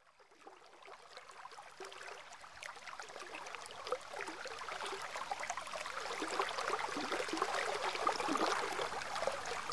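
Waterfall water splashing and babbling, fading in from silence and growing steadily louder.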